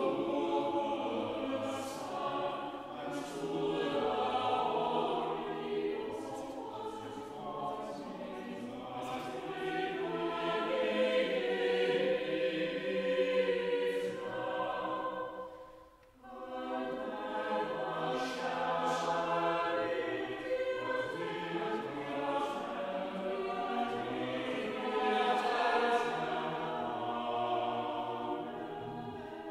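Mixed choir of men's and women's voices singing in chorus, with a short break about sixteen seconds in before the singing goes on.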